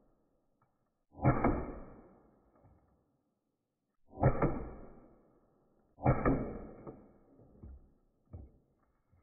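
Umarex HDR 50 CO2 revolver firing .50-calibre aluminum balls into drywall: three sharp shots, the first about a second in and then roughly every two seconds, each with a short decaying ring. Two fainter knocks follow near the end.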